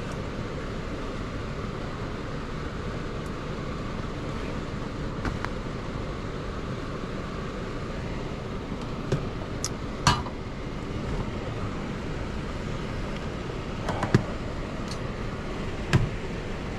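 Air handler's blower fan, driven by an X13 motor, running steadily, with a few sharp clicks and knocks, the loudest about ten seconds in.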